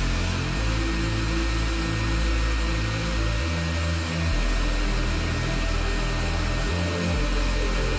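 Background music with a steady bass line, over the steady whoosh of a carpet extractor's vacuum motor as its upholstery tool is drawn across a cloth bench seat.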